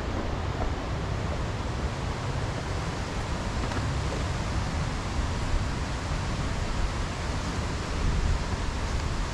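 Steady rushing of a mountain stream: an even hiss of flowing water, with low wind noise fluttering on the microphone.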